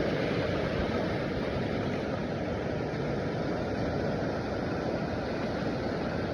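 Big ocean waves surging and breaking, heard as a steady rush of noise.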